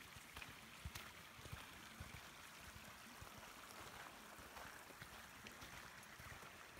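Faint footsteps on a dirt forest trail, soft thuds about twice a second, over a steady faint hiss.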